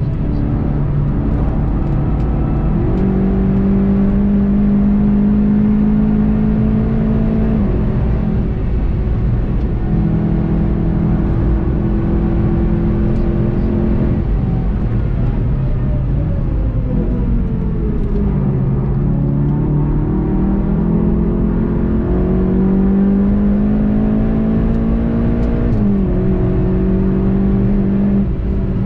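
VW Golf 7.5 GTI TCR's turbocharged four-cylinder engine pulling at full load on track, its pitch climbing steadily and dropping abruptly at an upshift about a quarter of the way in and again near the end. In the middle the revs wind down as the car slows, then climb again, over steady road and wind noise.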